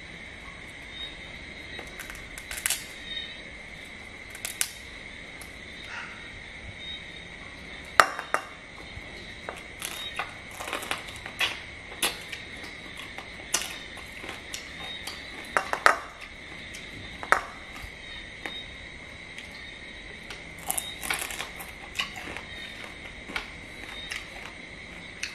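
Cooked crab shells being cracked and picked apart by hand and chewed, giving irregular sharp cracks and crunches. A steady high-pitched whine runs underneath.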